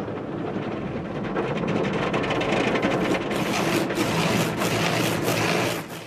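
Automatic car wash heard from inside the car: water spray and wash machinery running over the windshield and body in a steady rushing noise. It grows louder about a second and a half in and turns to a heavier hissing spray, in repeated sweeps, from about three seconds in.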